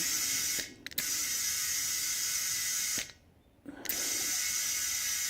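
Compressed air hissing from a compressor's inflator chuck into an ATV tire through its new valve stem, in bursts with two short pauses between them.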